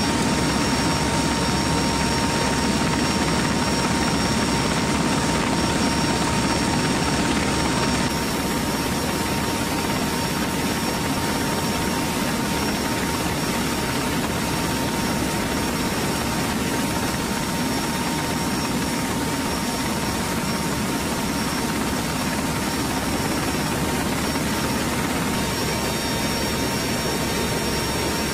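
Steady in-flight roar of the HC-130N tanker's turboprop engines and rushing air, with a thin, steady high whine running through it.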